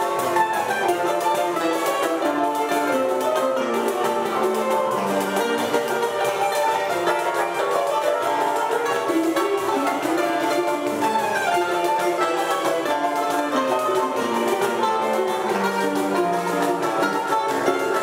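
Live choro played by a small acoustic ensemble: a ten-string bandolim carries busy melodic lines over acoustic guitar and cavaquinho accompaniment, with a pandeiro keeping the rhythm.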